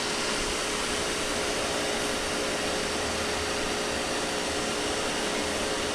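Pro-Cut on-vehicle brake lathe's 0.75 horsepower electric motor running steadily, its drive shaft spinning slowly: an even, quiet whir with a steady hum.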